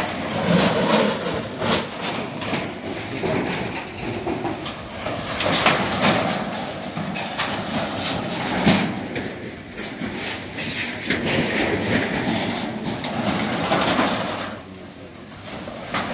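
Irregular clanks and knocks of corrugated metal roofing sheets and charred debris being moved, over a steady rushing noise, with a few indistinct voices.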